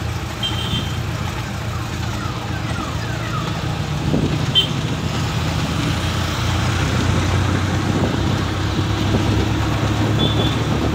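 Steady engine and road noise heard from inside a moving bus, with traffic passing close by. Brief high-pitched toots sound three times: just after the start, about halfway through, and near the end.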